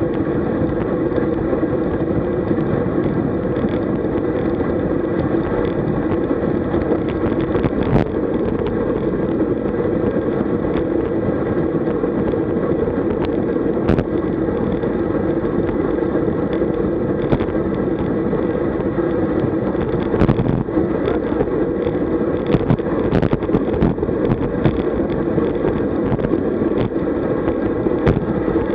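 Steady wind rush on the microphone of a bike-mounted camera, with tyre and road noise, while a road bike rides at about 42 km/h. A few short clicks or knocks break through it here and there.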